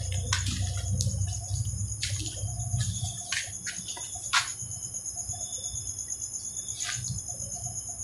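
Night insects chirring steadily in a high, rapidly pulsing trill. A few sharp clicks sound in the first half, over a low hum that fades about three seconds in.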